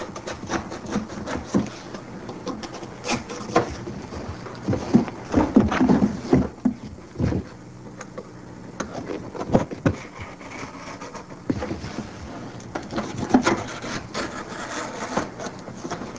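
Cardboard box being cut down at its corners: irregular scraping, rasping strokes of the cut through the cardboard, heaviest about a third of the way in and again past the middle.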